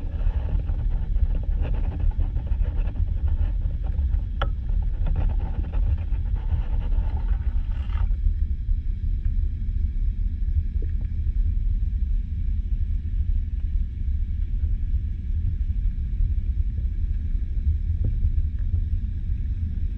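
Muffled underwater rumble picked up by a camera in its waterproof housing: a steady deep drone of water against the case. Faint crackling and ticking over it cut off suddenly about eight seconds in.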